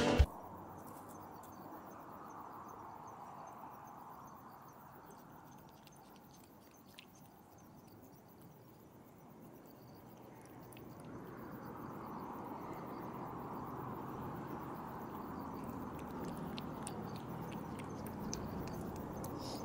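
A cat lapping milk from a plastic dish right at the microphone: soft, quick wet licking clicks. Underneath is a faint steady rushing that grows louder about halfway through.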